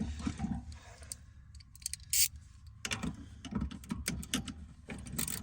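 Hand ratchet with a socket tightening a seat-mount bolt, clicking in short runs of sharp ticks, with one louder metallic clack about two seconds in.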